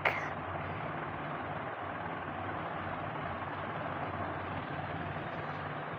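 Steady background hum and hiss with a low droning tone, unchanging throughout.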